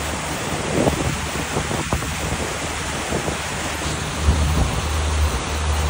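Steady rushing noise of wind and water from a moving boat, with wind buffeting the microphone in an uneven low rumble.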